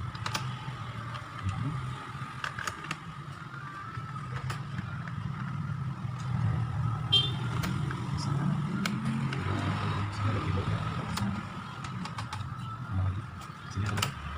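Scattered light clicks and taps of plastic laptop parts and small screws being handled and fitted during reassembly, over a steady low rumble.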